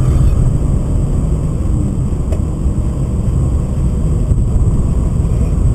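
Cabin noise inside a BMW 528i on the move: the M52B28 straight-six engine together with tyre and wind rumble, steady and loud.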